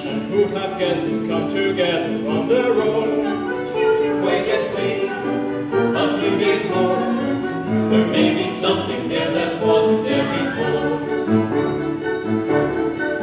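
A song from a live stage musical: singing voices over instrumental accompaniment.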